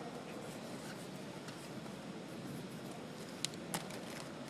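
Marker scratching on paper as an artist sketches, over a steady hall murmur. Two sharp clicks come close together near the end.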